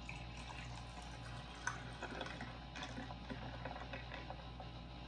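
Fizzy Oreo Coke soda poured into a cup, a steady fizzing pour with small crackling pops.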